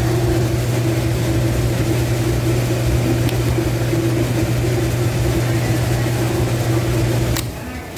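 Conveyor-type commercial dishwasher running with a steady motor and pump hum, which cuts off abruptly with a click about seven seconds in.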